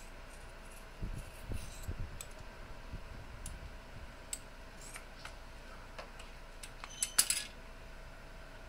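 Scissors cutting across flattened rubbery heat shrink tubing: a run of small snips and clicks with some handling thumps, the loudest clicks about seven seconds in.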